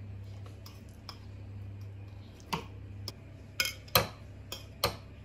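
Metal fork scraping mashed banana off a ceramic plate into a bowl of batter, clinking sharply against the china about six times in the second half, over a steady low hum.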